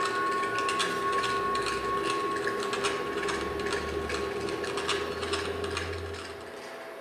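Experimental installation soundtrack: dense, irregular clicking over steady high tones, with a low hum that swells and cuts off about six and a half seconds in.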